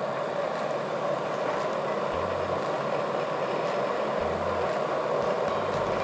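Cosori electric gooseneck kettle heating water: a steady hiss and rumble from the water over the heating element, partway to its 205°F coffee setting.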